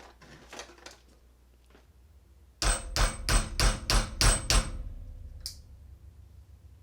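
A few light metal clicks, then a small hammer tapping a steel tool seven times in quick succession, each strike ringing metallic, to drive a padlock's hammered-down pin back up.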